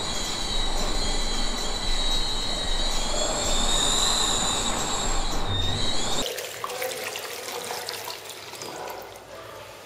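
A high, wavering screech over a low rumble cuts off abruptly about six seconds in. It gives way to the quieter splash of a running tap as hands are rubbed under it.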